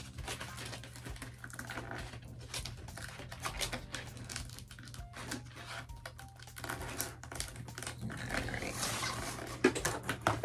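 Plastic jelly ribbon crinkling and rustling as it is handled and formed into a bow loop, with many small scattered clicks and taps.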